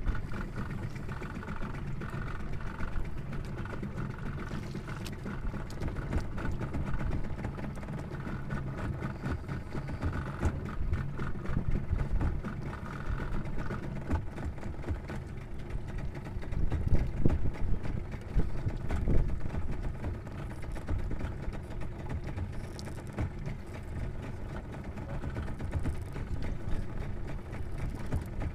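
Small outrigger fishing boat's engine running steadily at idle, a continuous low hum that swells a little in the middle.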